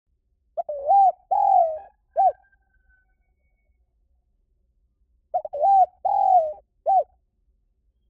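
Spotted dove cooing: two identical phrases a few seconds apart, each a short rising-and-falling coo, a longer coo and a clipped final note.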